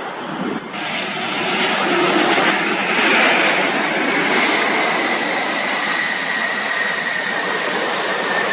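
Airliner's engines passing close by: a loud, steady rush that swells about a second in, peaks around three seconds in, and carries a high whine that slowly falls in pitch.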